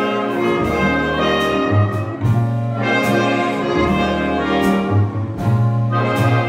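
Jazz big band playing an instrumental introduction, saxophones and brass together in full ensemble.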